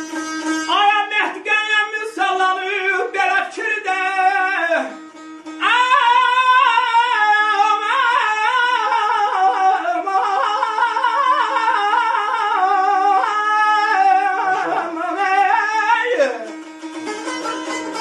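A man sings a melismatic Azerbaijani ashiq melody in the Segah mode to his own Azerbaijani saz, whose strings keep a steady drone under the voice. The singing breaks off briefly about five seconds in and stops about a second and a half before the end, leaving the saz playing alone.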